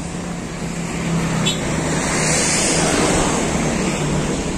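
Road traffic: a motor vehicle passing close by, its engine and road noise swelling over a couple of seconds and then easing off near the end.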